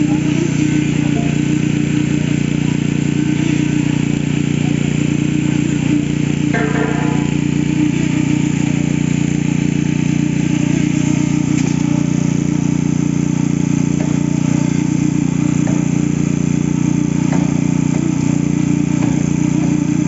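Heavy diesel engine of site machinery running steadily at one constant pitch, an even low drone that does not rise or fall.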